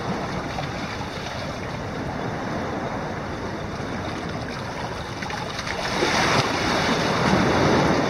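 Steady wind and sea noise, swelling louder about six seconds in.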